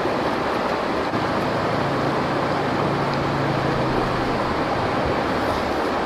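Rocky stream rushing steadily over stones.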